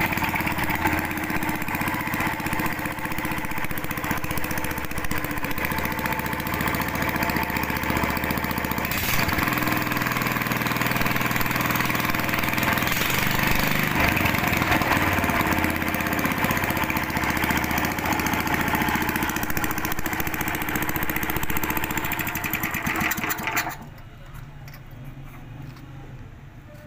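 Rebuilt 9 hp single-cylinder air-cooled petrol engine, with freshly fitted piston rings, running steadily. It cuts off suddenly near the end.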